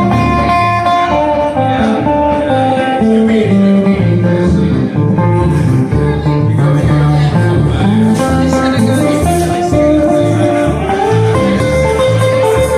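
Acoustic guitars and bass playing an instrumental break in a country-blues song, with steady strummed and picked chords over a walking low bass line.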